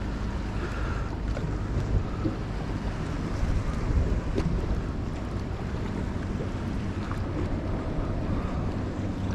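Wind buffeting the microphone over choppy water, with a steady low hum from an idling outboard motor and a few faint ticks.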